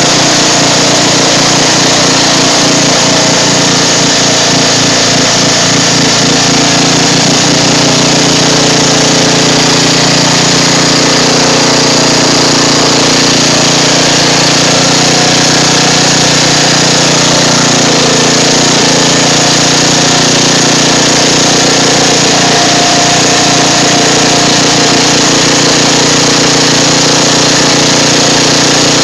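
Riding lawn mower's engine running steadily, loud and close.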